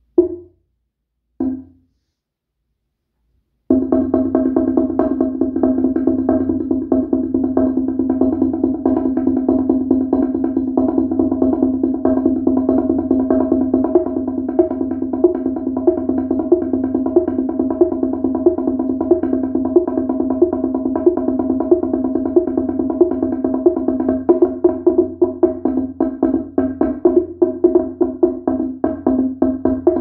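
A bamboo teponaztli, an Aztec two-tongued slit drum, struck with mallets. Two single strokes come first, then a pause, and from about four seconds in a fast, even stream of strokes rings out on its two notes.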